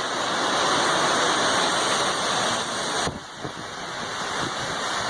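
Heavy thunderstorm rain and wind, a dense steady rushing noise that drops in level about three seconds in.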